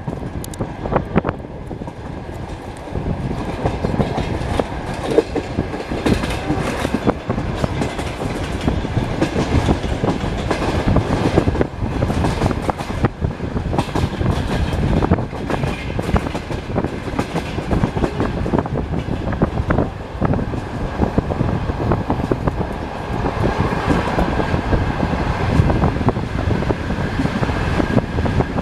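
Passenger train carriage rolling along the track, heard from inside the car: a steady rumble with the wheels clacking and knocking over rail joints.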